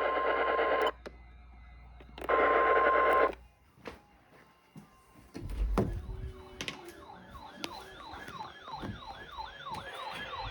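Two roughly one-second bursts of buzzy EAS-style data tones, then a wailing electronic siren that warbles up and down about twice a second, starting about halfway through.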